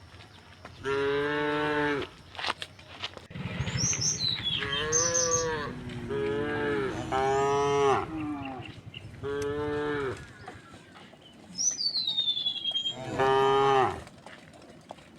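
Cows mooing over and over, about seven separate moos of roughly a second each, some higher and some lower in pitch.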